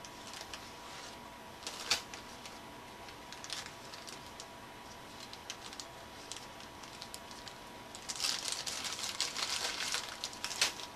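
Fingers rummaging in a small plastic bag of metal brads: the bag crinkles and the brads click against one another, with scattered clicks at first and a denser, louder stretch of rustling and clicking for a couple of seconds near the end.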